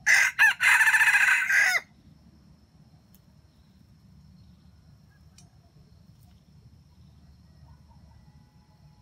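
Junglefowl rooster crowing once: a crow of just under two seconds, broken twice near its start and trailing off in a falling note.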